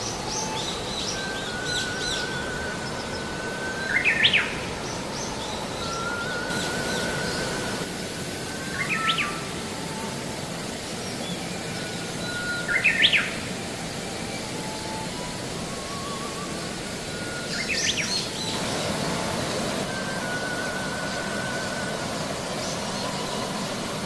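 Stream water rushing steadily over rocks and small cascades, with a songbird singing a short phrase four times, a wavering trill ending in a quick rising note. Fainter high chirps of other birds come through now and then.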